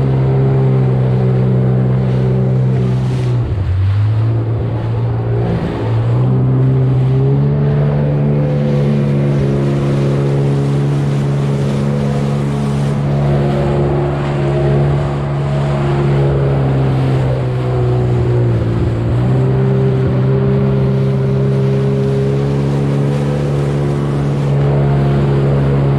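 Sea-Doo jet ski engine running at speed with a steady drone. Its revs dip briefly three times and pick back up, over water rushing and spraying past the hull.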